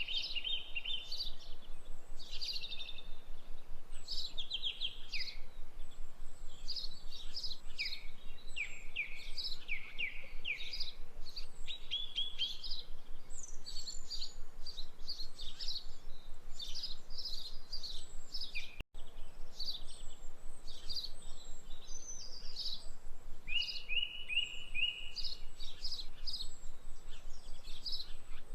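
Birds chirping and singing: quick downward-sweeping chirps and trills overlapping one another, broken by a split-second gap about two-thirds of the way through.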